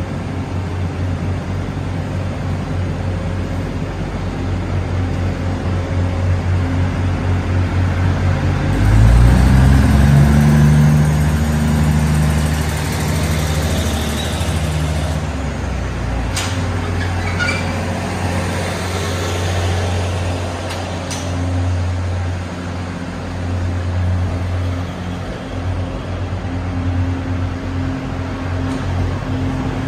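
Taiwan Railway DR3100 diesel multiple unit pulling out: its diesel engines run steadily, then rev up about nine seconds in as the train starts to move. The steady diesel drone continues as the cars roll past, with a few sharp knocks in the middle.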